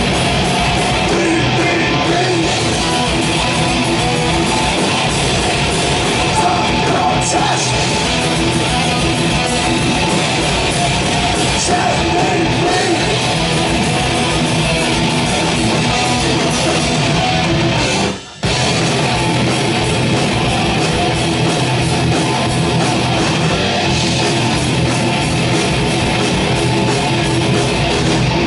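Thrash metal band playing live: distorted electric guitars, bass and drums, loud and dense, with a brief full stop about eighteen seconds in before the band comes back in.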